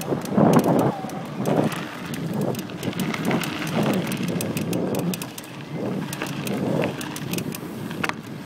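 Brand-new Cannondale Flash 29er mountain bike creaking over and over as it is ridden, in short clicks several times a second. It is loud and constant; the owner suspects the front hub, wheel or Lefty fork, and hopes it is not the frame.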